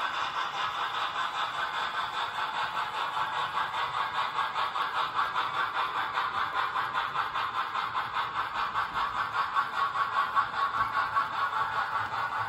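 HO scale model freight cars rolling past on the track, their metal wheels running over the rails with an even, rapid clicking rhythm.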